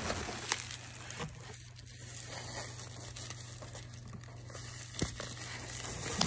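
Crinkle-cut shredded paper filler rustling and crinkling as a hand rummages through it in a cardboard box. It is loudest in about the first second, then softer, with a few light ticks.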